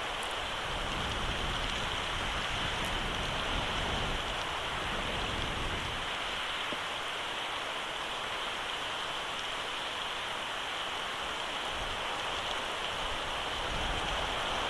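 Steady hiss of rain falling on the eagle nest and the camera's microphone, with a low rumble that comes and goes underneath.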